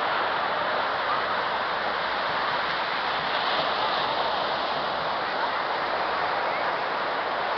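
Ocean surf washing onto a sandy beach: a steady rushing wash of breaking waves.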